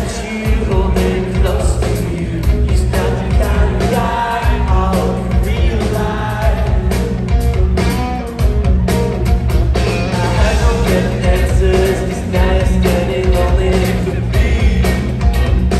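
Live rock band playing a song with a singer, electric guitars and drums, heard from the audience in a theatre.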